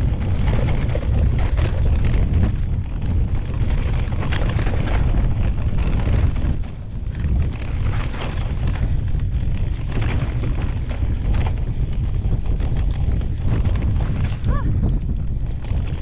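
Wind buffeting a chest-mounted action camera's microphone during a fast mountain-bike descent, over the constant rattling and knocking of the bike on a rough, chunky trail.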